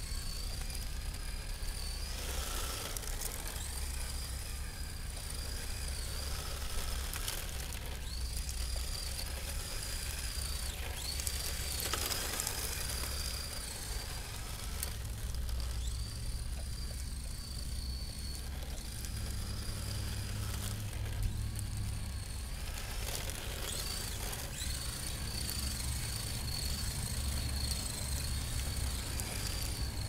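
Electric motor and shaft drive of a Tamiya TT-01D radio-controlled drift car whining high and thin, the whine wavering, dipping and breaking off several times as the throttle is worked, over a steady low rumble.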